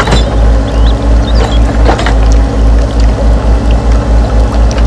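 Radio-controlled Volvo EC160E model excavator working: a steady low hum that pulses several times a second, with short crunches of gravel near the start and about two seconds in as the bucket scoops a load.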